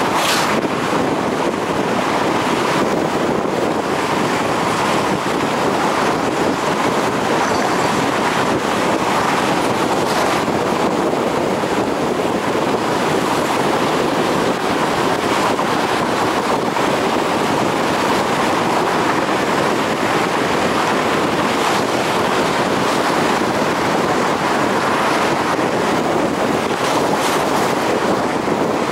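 A car driving at highway speed: steady tyre and wind noise, with a few brief louder hisses.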